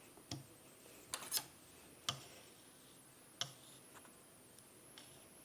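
Scattered light clicks and taps, about six at irregular intervals, the loudest a little over a second in and at about two seconds, over a faint steady hiss.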